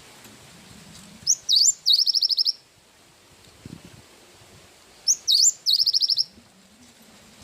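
Gelatik batu (cinereous tit) singing twice, each phrase a couple of sharp, quickly sliding whistled notes followed by a fast trill of about eight repeated notes.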